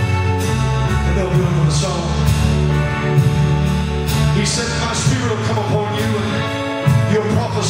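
Live gospel praise-band music: a drum kit played with repeated cymbal crashes over sustained bass and chords, with singing.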